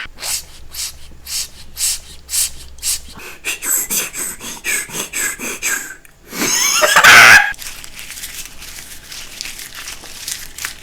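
A man imitating a sound with his mouth: a run of short, sharp mouth noises, several a second, then a loud breathy blast about six seconds in, followed by fainter, softer noises.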